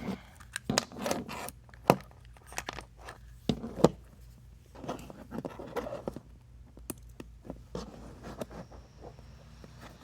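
Hands handling USB charging cables and a load tester: irregular rustling and scraping with sharp clicks of plastic and metal connectors, the loudest two about two and four seconds in.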